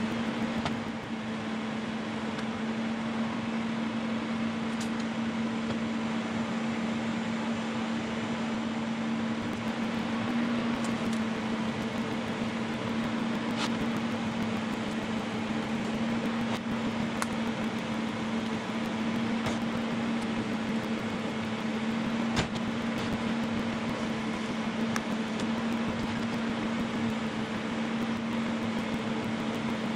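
A steady machine hum over a constant hiss, with a few faint clicks.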